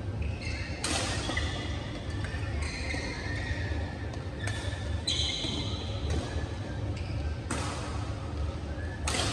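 Badminton doubles rally: sharp cracks of rackets striking the shuttlecock, about five of them with uneven gaps, with short squeaks of court shoes on the floor between the hits. A steady low rumble runs underneath.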